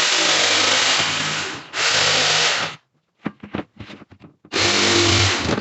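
Electric power tool running in three loud bursts, with short clicks and knocks in the gaps between them.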